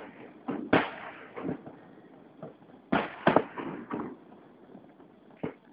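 Fireworks shells bursting overhead: a series of sharp bangs, some close together in pairs, each followed by a rolling echo, growing sparser toward the end.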